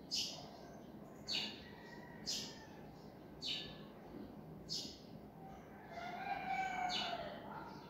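A small bird chirping over and over, one short, sharp high note about once a second. Near the end a lower, wavering call rises and falls for a second or two.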